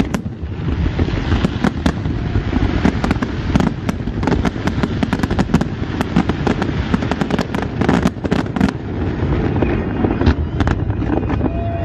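Aerial firework shells bursting in quick succession: a dense run of sharp bangs and crackles over a steady low rumble.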